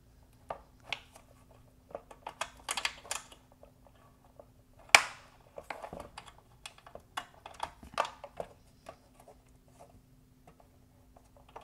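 Small plastic clicks and rattles as the wire harness connectors on the underside of an Infiniti Q50 LED headlight are worked loose, with one sharp click about five seconds in.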